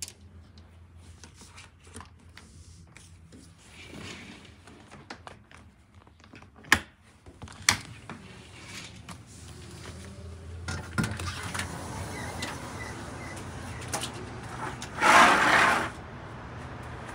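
Sliding glass balcony door being handled and opened: two sharp clicks about a second apart, then the outside traffic hum grows louder. Near the end comes a loud rushing sound about a second long.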